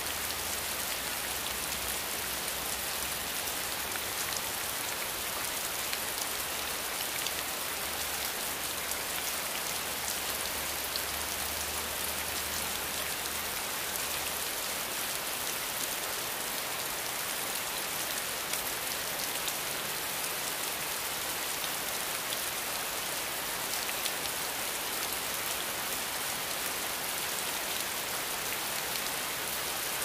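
Steady rain falling: an even hiss with a fine patter of individual drops.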